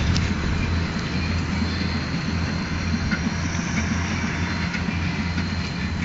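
Tractor engine running steadily with a constant low hum.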